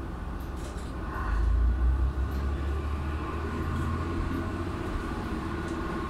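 Diesel railcar's engine running and throttling up as the train pulls away from a station, heard from inside the car: a low rumble that swells about a second in, then settles into steady running.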